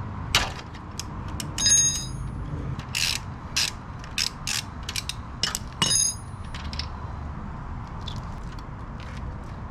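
Metal hand tools clicking and clinking irregularly as a bolt is being worked loose with a socket wrench. Two of the clinks ring briefly, about two seconds in and again about six seconds in.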